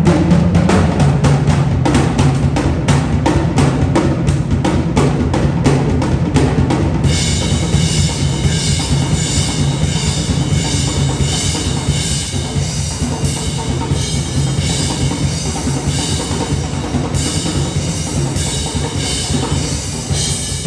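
A live band plays a drum-driven instrumental passage: a fast, steady kick-and-snare beat over a held bass line. About seven seconds in, a brighter, sustained high layer joins the beat.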